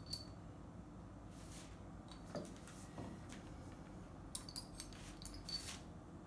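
Faint, scattered clinks and taps of a thin marbling tool against small glass paint jars, most of them bunched between about four and six seconds in.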